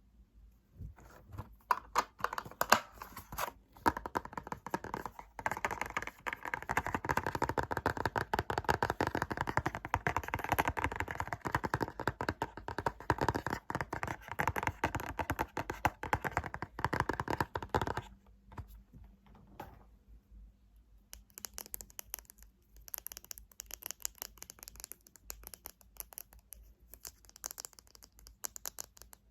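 Fingernails tapping rapidly on objects and lids, a fast dense run of clicks. The tapping is heavier and louder through the middle, then turns lighter and quieter about two-thirds of the way through.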